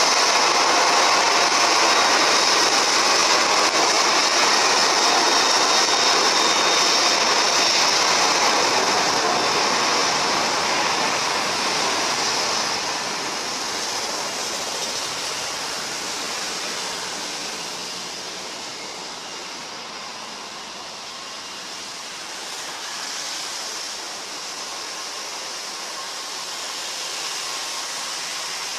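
Jet engines of a Boeing 737 airliner running as it rolls down a wet runway, with the hiss of tyre spray, loud as it passes close and then fading steadily as it moves away.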